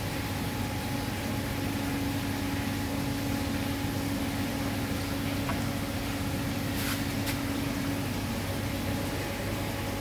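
A steady mechanical hum: a low drone with a few held higher tones over an even hiss, and two faint ticks about seven seconds in.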